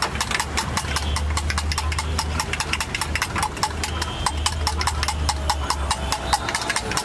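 Eggs being beaten by hand in a small steel bowl: a metal utensil strikes the bowl in rapid, even clicks, several a second, over a steady low hum.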